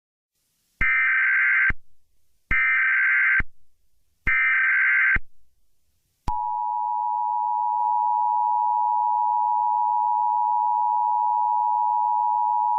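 Emergency Alert System tones. First come three short, identical bursts of the SAME digital header data. About six seconds in, the steady two-tone attention signal starts and holds through the rest.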